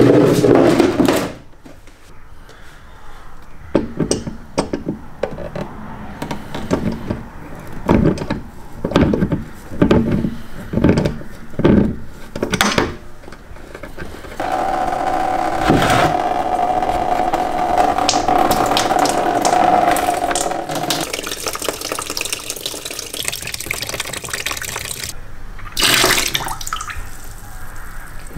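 A series of knocks and clicks as the BMW E30's plastic radiator drain plug is worked loose. Then old coolant pours from the radiator into a plastic tub in a steady splashing stream with a ringing filling tone, thinning to a quieter trickle after several seconds.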